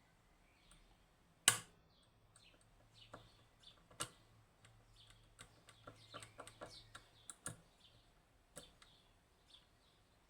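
Small irregular metallic clicks and ticks of lock picks working the levers of a Union (Chubb) G110 five-lever lock, with a sharper click about a second and a half in.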